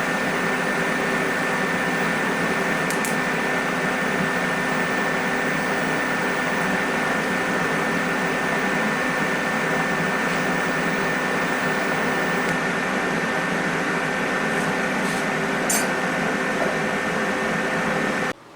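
Steady machine noise in a workshop: a hiss with a hum of several steady tones and a couple of faint ticks. It cuts off suddenly near the end.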